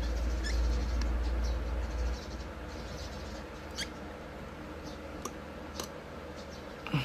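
A few sharp little clicks and taps of metal pliers handling a small wire terminal on a wire, over a low hum that stops about two seconds in.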